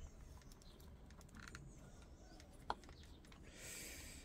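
Faint, scattered light clicks and taps of small plastic RC-car parts and a screwdriver being handled, with one sharper click past the middle and a short scrape near the end.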